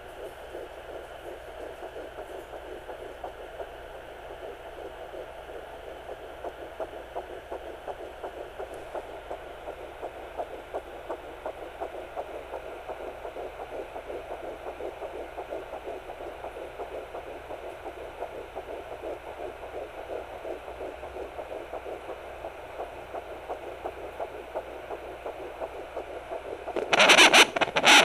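Fetal heartbeat at 9 weeks heard through a Sonoline B handheld doppler: rapid whooshing pulses over a steady hum. A loud burst of noise cuts in about a second before the end.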